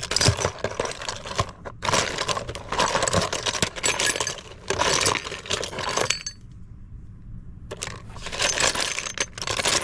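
Small toy cars and plastic toys clattering and clinking against each other and a plastic tub as a hand stirs through them, in several rattling bursts with a short lull in the second half.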